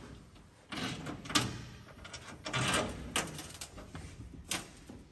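Metal hardware being handled: a few sharp clicks, the loudest about a second and a half in and another near the end, between short scraping rattles of fasteners and a tool against the grille panel.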